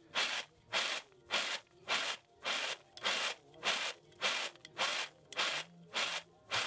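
Dried beans rattling and sliding on a metal plate as they are tossed by hand, in a steady rhythm of short swishes about one every 0.6 seconds.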